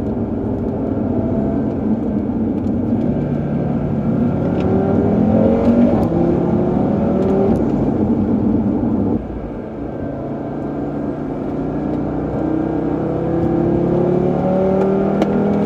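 2018 Audi RS3's turbocharged five-cylinder engine accelerating hard, its note climbing in pitch, dropping suddenly about nine seconds in at an upshift, then climbing again.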